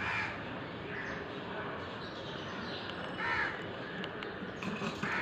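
A crow cawing: about three harsh calls, the loudest a little past the middle, over steady background noise.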